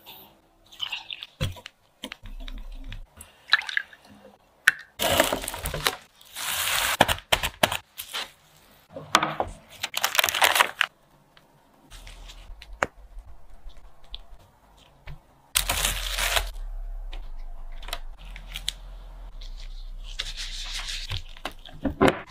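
Hand food-preparation sounds at a worktop: a series of short rustling, pouring and scraping noises in separate bursts of a second or two, as starch flour is poured into a glass bowl, a sponge sheet is rolled and sticky dough is worked by hand. A low steady hum comes in about two-thirds of the way through.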